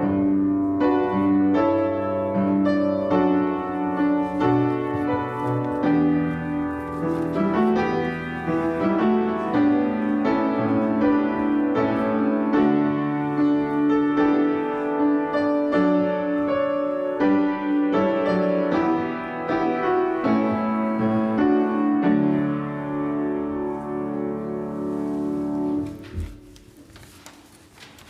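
Keyboard instrument playing a slow hymn tune in sustained chords with a held bass line, stopping about 26 seconds in.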